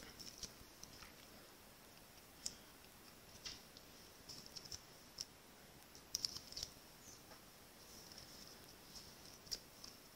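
Faint, scattered light clicks and taps as a pen-like pick-up tool lifts small brushed brass butterfly embellishments off their sheet and presses them onto a paper card. The clicks come singly or in small clusters, a second or more apart.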